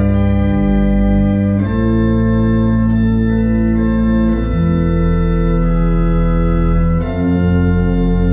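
Pipe organ playing slow, sustained chords over a deep bass, the chord changing about every two to three seconds.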